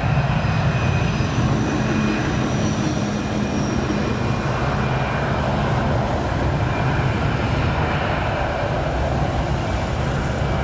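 Airbus A319 jet engines at takeoff thrust during the takeoff roll: a steady, heavy rumble with faint high whining tones over it.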